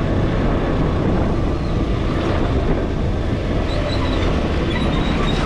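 KTM 250 Duke motorcycle riding along at road speed: a steady rush of wind over the microphone, with the single-cylinder engine running underneath.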